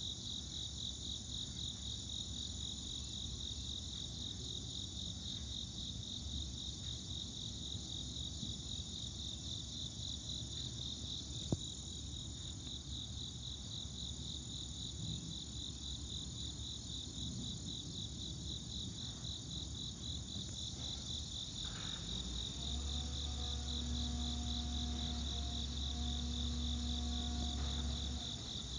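Crickets chirping in a steady chorus, a fast pulsing high trill. A faint low rumble sits underneath, a single click falls about a third of the way through, and a steady low hum joins near the end.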